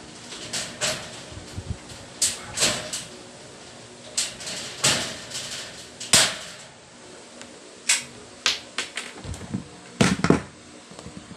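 Sharp metallic clicks and taps at irregular intervals, about a dozen in all, from steel furring channels of a ceiling frame being fitted and fastened overhead by hand.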